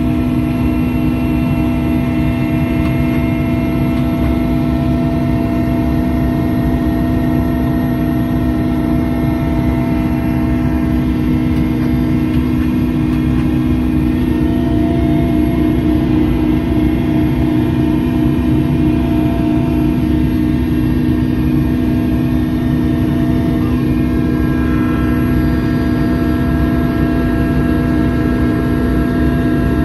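Helicopter in flight heard from inside the cabin: a loud, steady drone of engine and rotor, with a strong constant hum, fainter high tones above it and a low rush.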